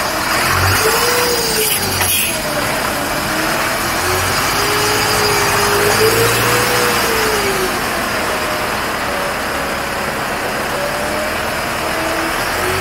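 Unimog U 5000's 4.7-litre four-cylinder diesel engine running as the truck crawls over rough ground, its pitch slowly rising and falling with the throttle. A brief knock comes about two seconds in.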